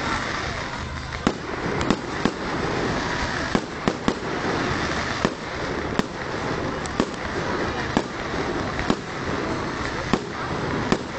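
Fireworks display: aerial shells going off in sharp bangs at irregular intervals, about one or two a second, over a continuous crackling hiss from the bursting stars.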